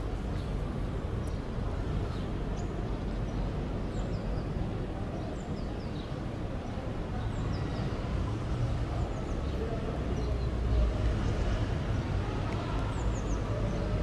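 Outdoor city ambience: a steady low rumble of traffic, with small birds chirping now and then.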